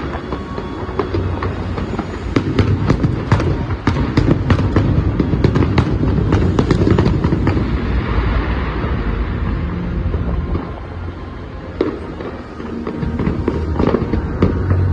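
Aerial fireworks bursting in a rapid run of cracks and booms, densest through the middle. They thin out for a couple of seconds, then pick up again near the end.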